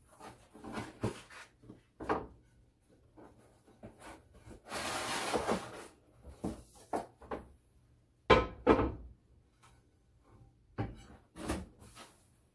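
Packaging being handled and pulled off a kitchen item: scattered rubbing and rustling, a longer scraping rustle about five seconds in, and a sharp knock a little after eight seconds, the loudest sound.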